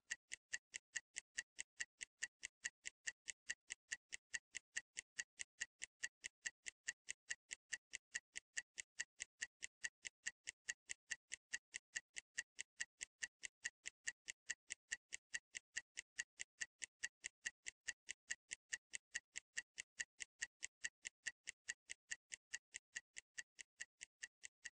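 Faint, rapid, evenly spaced clock-style ticking, sharp and high-pitched. It is the interval timer counting off a timed workout set.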